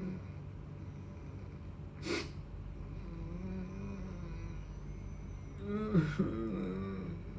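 A person acting sad with the voice: a short noisy breath about two seconds in, then whimpering, wavering moans that peak in a louder sob near six seconds.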